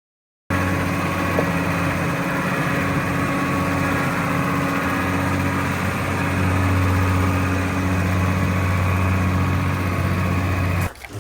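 Engine running steadily at an even speed, which stops abruptly near the end.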